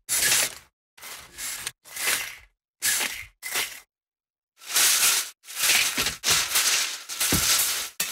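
Venetian blind being yanked by its cord, the slats clattering in several short rattling bursts, then after a brief pause a longer run of near-continuous clattering as the blind jerks up and drops.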